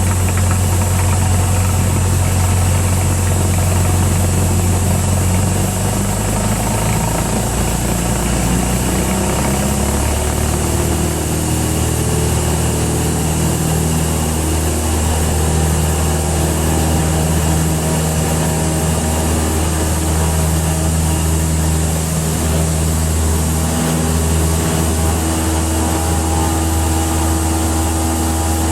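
Cessna 172's four-cylinder piston engine and propeller running at takeoff power, a steady loud drone whose pitch shifts slightly a few seconds in and again about ten seconds in.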